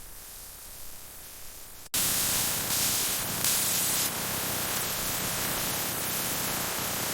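Compressed-air spray hissing steadily and loudly, like a spray gun coating aircraft skin. It starts abruptly about two seconds in, after a fainter hiss.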